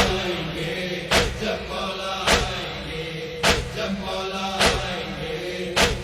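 Noha lament: a voice chanting a wavering melodic line over a steady, heavy beat of strikes, about one every second and a bit.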